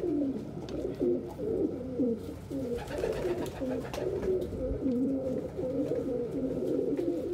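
Several pigeons cooing, their low coos overlapping in a continuous run.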